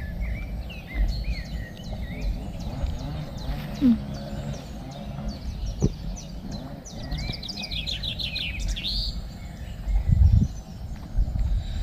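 Small birds chirping over and over, with a fast trilling run of notes a little past halfway, over a steady low rumble that swells near the end.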